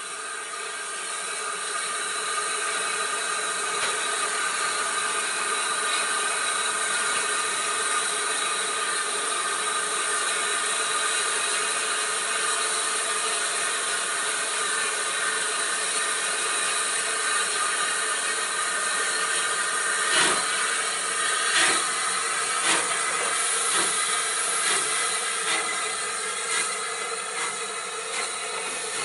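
Rebuilt Bulleid Pacific steam locomotive standing with steam hissing from its open cylinder drain cocks, then starting away about 20 seconds in with exhaust beats that come quicker as it gains speed.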